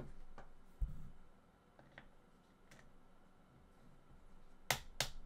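A dull thump about a second in as parts are moved on the bench, then two sharp clicks near the end from a ratcheting screwdriver turning out a hex screw of the airsoft rifle's stock bracket.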